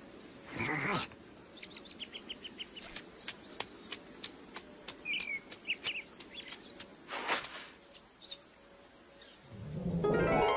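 Cartoon sound effects and a lizard character's squeaky, wordless vocal noises. There are two short rushing noises, the first about half a second in and the second about seven seconds in, with a run of light clicks and short high chirps between them. Near the end comes a louder sound that rises into a pitched cry.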